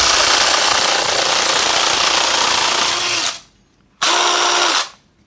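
Cordless DeWalt drill driving a DeWalt DWASHRIR shear attachment, its blades chattering loudly as it cuts through sheet steel for a little over three seconds. The drill stops, then runs again for just under a second with a steady motor whine.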